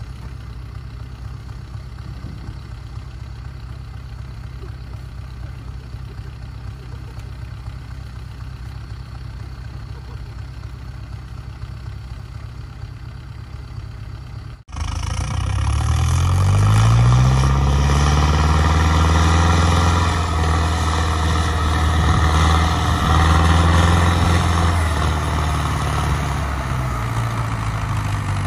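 Belarus 562 tractor's diesel engine idling steadily in the first half. After a cut about halfway through, it revs up, rising in pitch over a couple of seconds, then runs hard under load, pulling a trailer loaded with cassava through mud.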